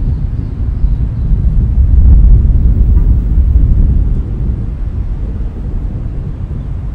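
A deep, noisy low rumble that swells about two seconds in and then slowly fades away.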